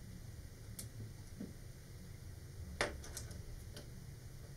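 A handful of faint small clicks and taps from hands handling a bottle of liquid plastic cement, a fine brush and small plastic parts on a workbench cutting mat, the sharpest about three seconds in, over a low steady room hum.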